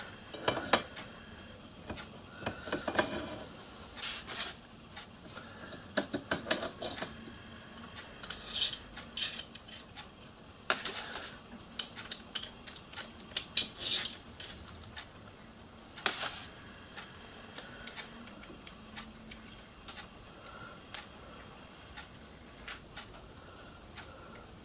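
Small steel parts of a micro lathe's tailstock being assembled by hand: irregular metal clinks, clicks and short scrapes as keeper plates and screws are fitted and tightened with a hex key.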